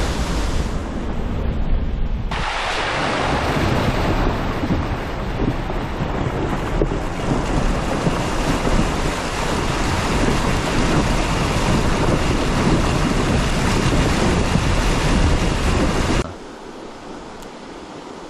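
An off-road vehicle fording a fast, shallow river: loud rushing and splashing of water against its wheels and doors. It starts after about two seconds of low rumble from the vehicle driving on a muddy track, and ends near the end with a sudden drop to the quieter steady flow of the river.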